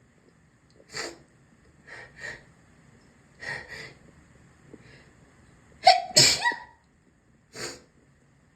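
A person sneezing repeatedly: a string of short, sharp sneezes about a second apart, some in quick pairs. The loudest is a voiced sneeze about six seconds in.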